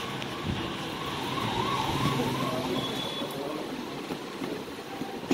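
A 4 HP pulverizer grinding mill running, with a steady hum and rushing noise that holds the same level throughout.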